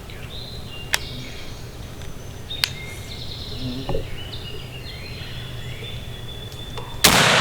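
Birds chirping quietly, then a single loud gunshot about seven seconds in, the shot that kills a wild turkey.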